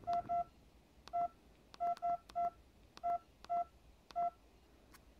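Samsung SCH-U320 flip phone's keypad beeping as its keys are pressed to type a text by multi-tap: about nine short beeps all at the same pitch, in uneven groups of two and three, each with a soft key click.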